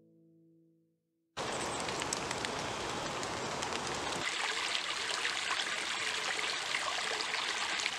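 Water trickling and splashing over rocks in a shallow stream. It starts suddenly about a second and a half in, after a moment of silence, then runs steadily with many small splashes.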